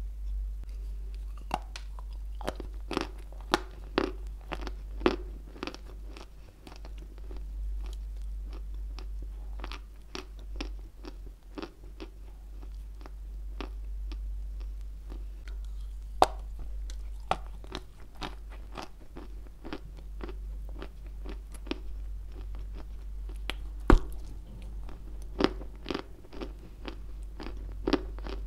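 Close-miked biting and crunching of a lump of white Turkestan edible clay. Irregular sharp cracks as pieces snap off, between stretches of softer chewing, with the loudest crack about 24 seconds in, over a steady low hum.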